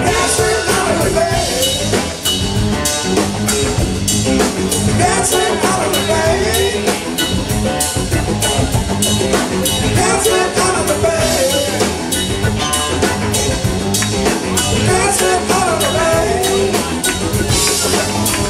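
Live rock band playing a song: electric guitar, electric bass and a drum kit keeping a steady beat.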